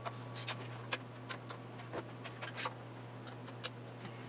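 Pipe clamps and bar clamps being fitted and tightened on a glued-up wooden board panel, giving irregular clicks and small knocks of metal clamp parts against wood, over a steady low hum.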